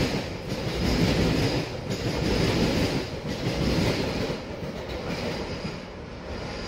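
GO Transit bilevel passenger coaches rolling past at speed: steady wheel and rail noise with clickety-clack over the rail joints, easing off a little over the last few seconds.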